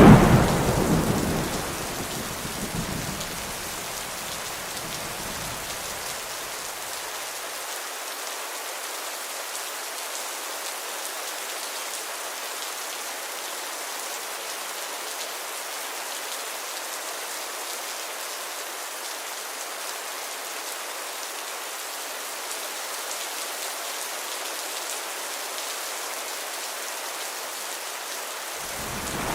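Steady heavy rain with a loud thunderclap right at the start that rumbles away over the next few seconds. Another roll of thunder begins just at the end.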